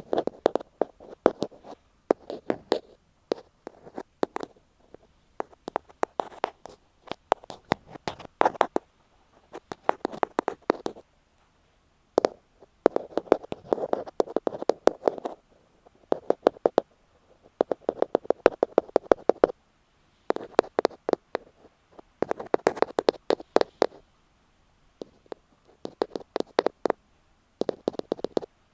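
Ear pick tapping rapidly on an earphone microphone, close-up, in bursts of quick taps a second or two long with short pauses between.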